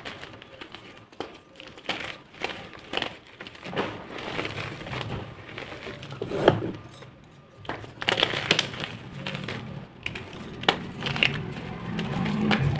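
Blocks of gym chalk being crushed and crumbled, in an irregular run of gritty crunches, with a sharper crunch about six and a half seconds in.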